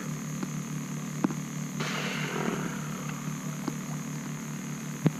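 Steady low electrical hum with a faint high whine above it. A couple of light knocks break through it, and a short rush of noise comes about two seconds in.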